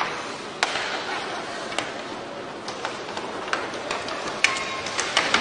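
Ice hockey play: irregular sharp clacks of sticks striking the puck and the puck hitting the boards, echoing in the arena over a steady hiss. A brief held tone sounds about four and a half seconds in.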